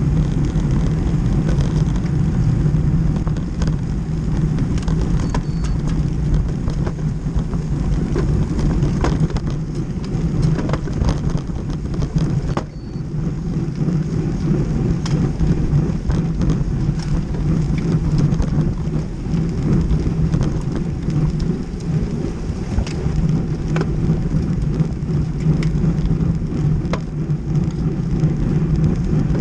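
Wind buffeting the microphone of a bicycle-mounted action camera at racing speed, a heavy steady rush mixed with tyre noise on the road, with scattered clicks and knocks. It eases briefly about thirteen seconds in.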